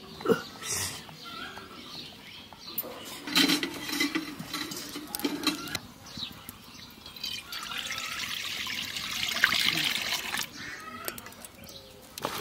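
Cooking oil poured into an empty metal kadai: a steady pouring rush for about three seconds in the second half. A few knocks and handling sounds come before it.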